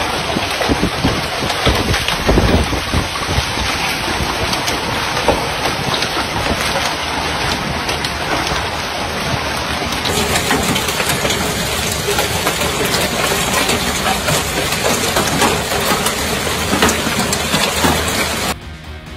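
Golf-ball-sized hailstones pelting parked cars and the street in a heavy hailstorm: a dense, steady clatter of countless hard impacts over a rushing downpour. The sound drops away abruptly near the end.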